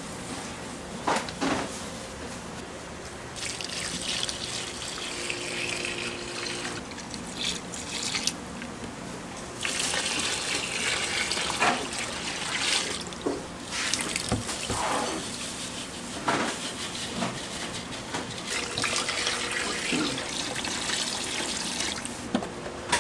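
Water from a tap running into a sink, turned on and off in three spells of a few seconds each, with short knocks and clatter of handling in between.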